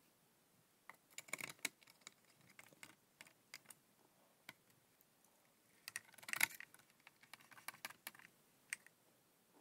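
Faint, scattered clicks and small rattles of hand work on a circuit board: screws and a screwdriver as the board is fastened into the station's housing. The clicks bunch into two quick clusters, about a second in and again about six seconds in.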